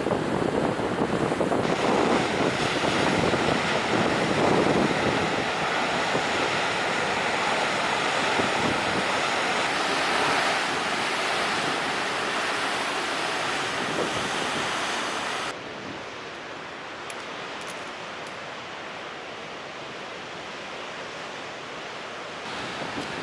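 Steady rush of ocean surf with wind buffeting the microphone. It drops suddenly to a quieter, duller rush about fifteen seconds in.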